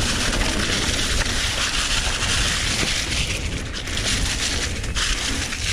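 Mountain bike riding fast down a dirt trail: steady wind rush buffeting the action-camera microphone over tyre and trail noise, with a few short knocks from bumps around the middle and near the end.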